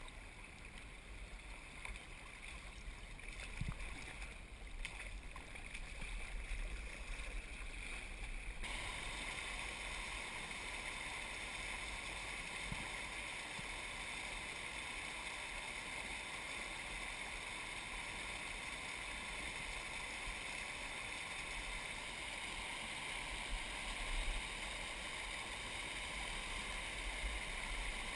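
Faint river water around a kayak. About a third of the way in, this gives way to a steady rush of spring water splashing down a mossy rock cascade, the main sound.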